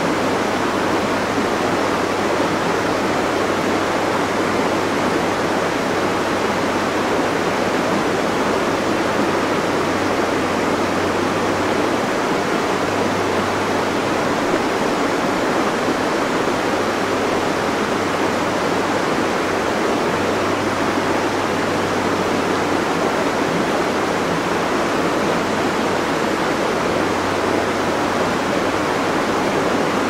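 Steady rush of water from a mountain stream at a check dam, with a low hum underneath that drops out and comes back a few times.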